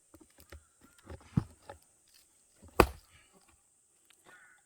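Axe splitting firewood: one sharp, loud strike about three seconds in, with a duller knock about a second and a half in and a few faint clicks around them.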